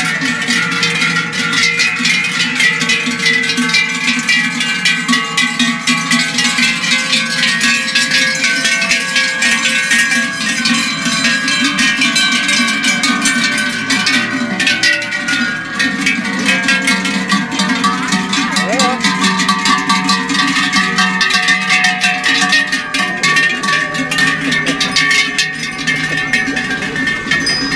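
Many large cowbells on the necks of walking cows clanging without a break. The rings of different pitches overlap into a dense jangle.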